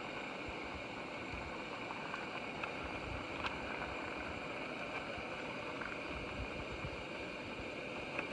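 Gas-canister backpacking stove burner running with a steady hiss under a pot of cooking ramen. A spoon clicks lightly against the pot about three and a half seconds in and again near the end.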